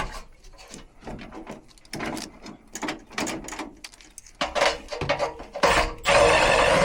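Furnace parts and tools being handled by hand: scattered clicks, taps and knocks, then a louder rough scraping noise just under a second long near the end.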